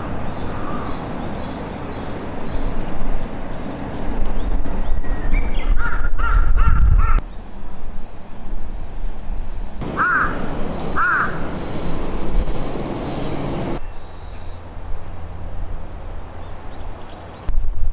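Crows cawing in woodland: a short run of calls about six seconds in and two more about ten seconds in, over low wind rumble on the microphone.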